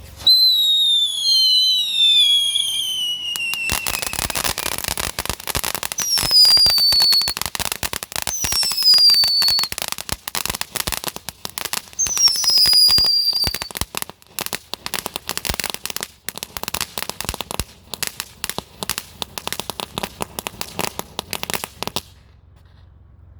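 Consumer fireworks going off: a few falling whistles, then dense rapid crackling like a string of firecrackers for most of the time, with more falling whistles over it. It all stops suddenly near the end.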